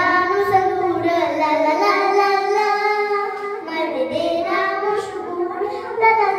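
Young girls singing a folk song into microphones: a continuous sung melody of held notes that glide between pitches.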